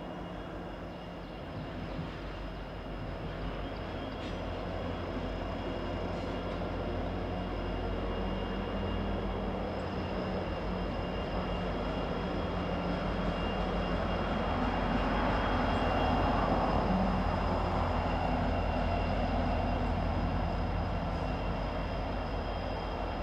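A CSX diesel-electric locomotive running light, with no train behind it, passes by: its engine drone builds steadily as it approaches, is loudest past the middle, and fades only a little as it moves off.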